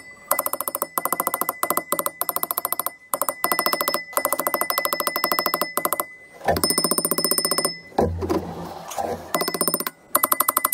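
A steel hammer rapidly striking a rusted rear brake drum, many sharp metallic hits a second in runs separated by short pauses, with the drum ringing. The drum is corroded and seized onto the hub and is being knocked loose. A duller scraping noise breaks in late on.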